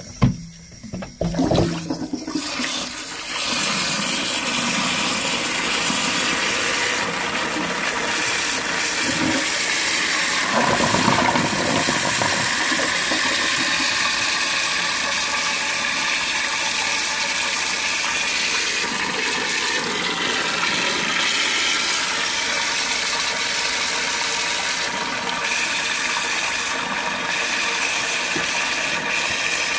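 Post-1945 STOM Cardiff 146 toilet cistern being flushed: a few knocks in the first two seconds, then steady rushing, hissing water as the tank empties and its float valve jets water back in to refill it.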